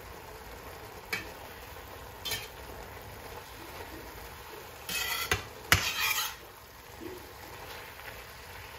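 Spinach sizzling steadily in a stainless steel frying pan while it is stirred with a slotted turner. The turner scrapes and clinks against the pan about five to six seconds in, after a couple of lighter taps earlier.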